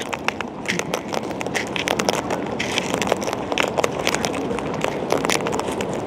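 Sulphur-crested cockatoos cracking and crunching seed with their beaks, a dense run of small cracks and clicks over a low rustling hiss.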